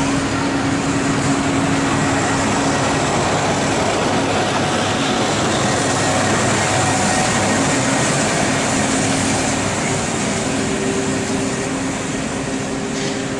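Heritage steam train's passenger coaches rolling along the rails, a steady rolling noise with a few faint held tones, fading near the end as the train pulls away.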